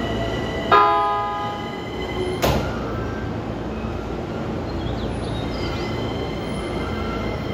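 E231 series commuter train sounding its horn once, a single pitched blast of about a second, as a departure warning. A brief sharp noise follows about a second and a half later over the train's steady hum as it stands at the platform.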